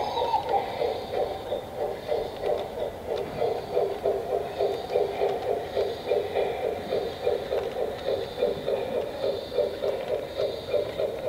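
Model steam locomotive's sound module chuffing in a steady, even rhythm as a G-scale garden railway train runs, through the locomotive's small speaker. A whistle tone dies away right at the start.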